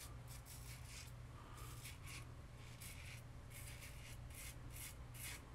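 RazoRock Lupo .95 double-edge safety razor scraping through lathered stubble in short, quick strokes, about three a second, faint, over a steady low hum.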